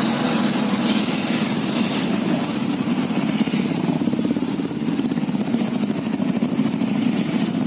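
Several motorcycles riding together at low speed, their engines running with a fast, even beat of exhaust pulses.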